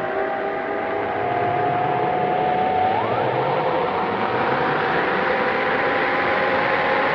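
Electronic science-fiction machine drone: several steady high tones over a hiss that grows louder, with one tone gliding upward about three seconds in. It is the sound of the helmet machine draining the captives' minds.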